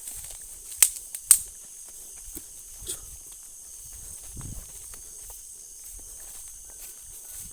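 Steady high-pitched chorus of night insects such as crickets, with two sharp snaps about half a second apart a second in, a fainter one near three seconds, and soft footstep thumps.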